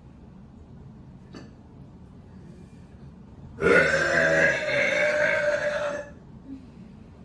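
A woman's single long, loud burp lasting about two and a half seconds, starting about three and a half seconds in.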